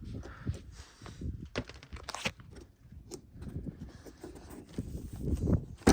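Plastic interior trim being pried and pulled off a truck cab, with scattered sharp clicks and knocks from clips and panels over rustling handling noise.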